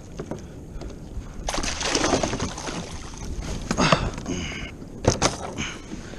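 Water splashing as a hooked kawakawa (false albacore) thrashes beside a plastic kayak and is hauled aboard, with two sharp knocks a little after five seconds in as the fish hits the hull.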